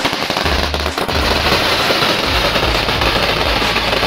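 A long string of firecrackers going off in a dense, continuous crackle of rapid bangs that starts right at the beginning.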